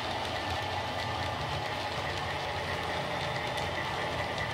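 Diesel engine sound from the Heljan Kestrel model locomotive's LokSound sound decoder, running steadily through its small speaker, with faint clicks from the model train running on the track.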